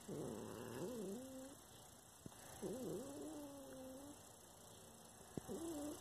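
Domestic cat yowling in three drawn-out, wavering calls: the first near the start, a second about midway, and a short one at the end. It is the low warning yowl of a cat being pestered by a dog.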